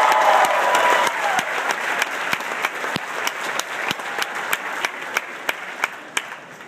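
Large crowd applauding and cheering, the shouts dropping away after about a second and the applause fading steadily, with many sharp clicks scattered through it.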